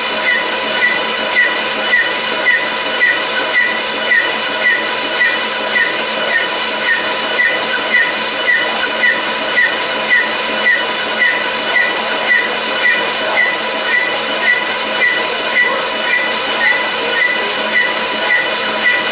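A machine running with a steady loud hiss and a short tick repeating about twice a second.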